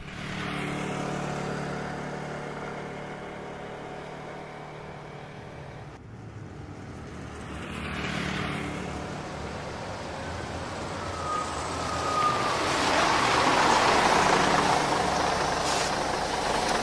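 Motorcycle engine running steadily and slowly fading as the bike rides away. About six seconds in the sound changes suddenly to street traffic, and a bus engine grows louder as the bus approaches, loudest near the end.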